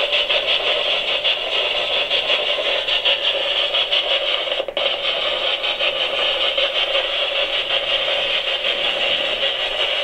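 Spirit box sweeping through radio stations: a continuous hiss of static chopped into rapid fragments, with a brief dropout about halfway through.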